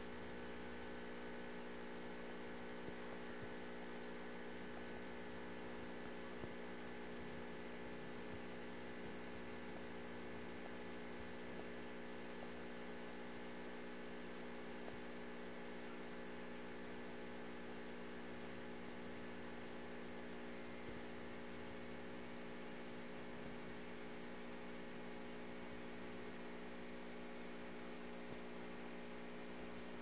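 Fluorescent light buzzing with a steady electrical hum that holds the same pitch and level.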